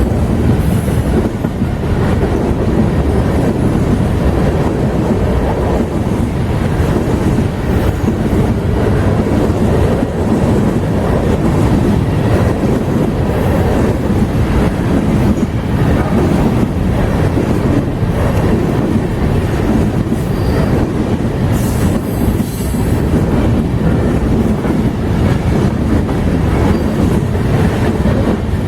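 Freight train cars rolling past, a steady rumble and clatter of wheels on the rails, with a brief high wheel squeal about three-quarters of the way through.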